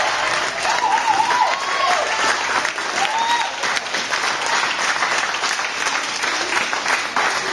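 Small audience clapping steadily, with a few voices cheering and whooping over it in the first three seconds.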